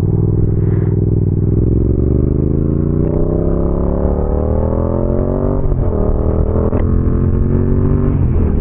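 Motorcycle engine accelerating, its pitch rising steadily for several seconds, then dropping at a gear change about five and a half seconds in and again near the end, over a steady low wind rumble.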